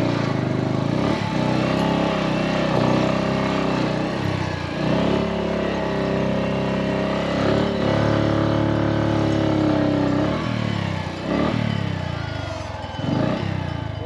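Motorcycle engine running while riding, its pitch rising and falling with the throttle and dropping away near the end as it eases off.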